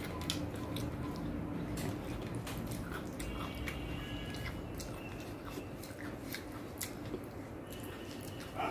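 Close-up eating sounds: chewing with small wet mouth clicks, and the soft squish of fingers mixing rice and chicken curry on a plate, over a steady low hum.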